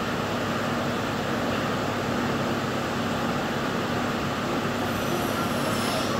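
Steady rushing mechanical background noise with a low hum underneath, even throughout; a faint high whistle slides down in pitch near the end.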